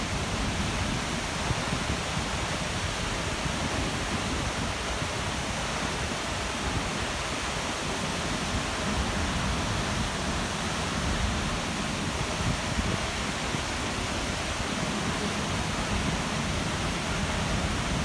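Waterfall plunging into its pool: a steady, unbroken rush of falling water.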